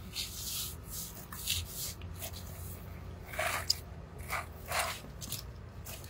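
Scattered rustling and scraping of a nylon fishing net and fish being handled into a bag, in about half a dozen short bursts.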